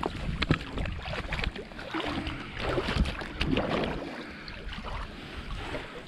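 Shallow lake water sloshing and splashing around a wading person's leg as he stands on a submerged hard rifle case, with many small splashes. Wind rumbles on the microphone, easing after about four seconds.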